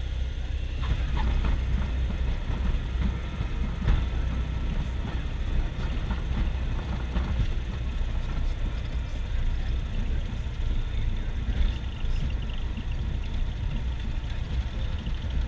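Cessna 172's piston engine and propeller running at a steady low drone, heard from inside the cabin, with a few faint rattles.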